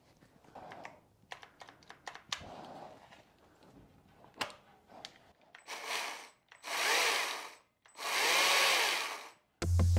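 Stihl MSA 120 C battery-powered electric chainsaw run in three short bursts of about a second each, the motor and chain speeding up and winding down each time, after a few seconds of light handling clicks. Electronic music with a heavy beat cuts in just before the end.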